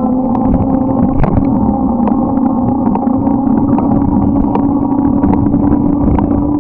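Motorcycle engine running at a steady cruise, its pitch creeping slightly higher, over a continuous rumble of wind and road noise with scattered small clicks and rattles.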